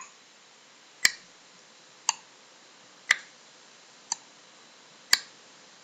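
Wall clock ticking, one sharp tick about every second.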